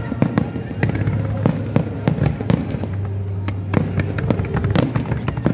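Fireworks going off in a rapid, irregular series of bangs and crackles.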